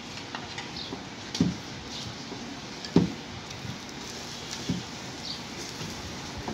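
Cooking clatter at a paratha griddle: a metal spatula working flatbreads on the iron plate while dough is handled beside it, giving a few sharp knocks, the loudest about three seconds in, over a steady hiss.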